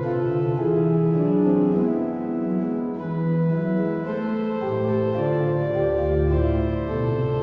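Organ playing a slow chorale prelude, with sustained chords moving from one held chord to the next. A deep bass note comes in about six seconds in.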